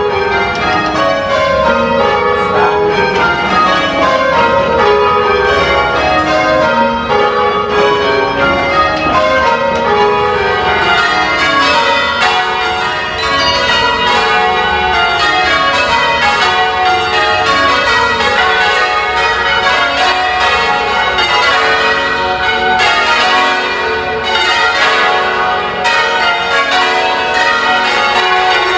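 Church tower bells rung full-circle by a team of ringers pulling ropes, the bells striking one after another in repeated runs from the highest bell down to the lowest, overlapping and ringing on without a break.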